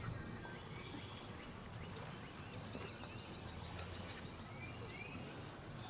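Quiet open-air ambience: a steady low rumble with a few faint, short bird chirps.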